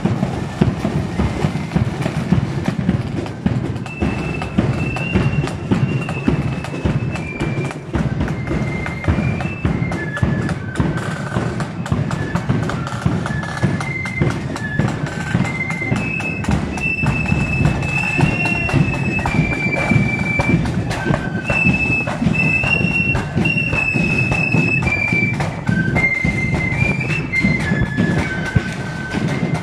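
Marching flute band playing: side drums and bass drum beat steadily, and the high flute melody comes in about four seconds in and carries the tune.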